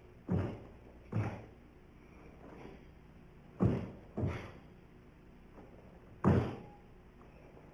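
Sharp thuds of bare feet stepping and stamping on a wooden stage floor during a karate kata: five strong hits, coming in two pairs and then a single one, each dying away quickly.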